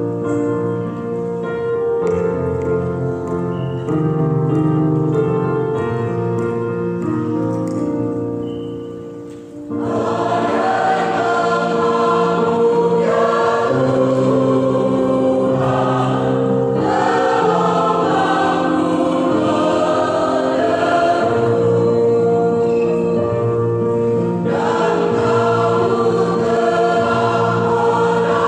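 Church choir singing a gospel hymn with keyboard accompaniment; for the first ten seconds or so the keyboard plays alone or with soft voices, then the full choir comes in and the sound grows fuller and louder.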